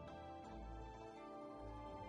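Soft background music with sustained notes over a slow low pulse.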